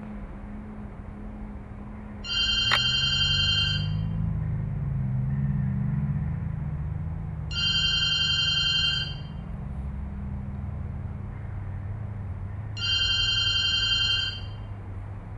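A telephone ringing three times, each ring about a second and a half long and about five seconds apart, over a steady low hum.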